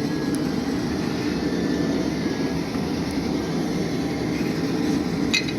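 Blacksmith's forge running with a steady low roar of burning air. A single short metallic clink near the end.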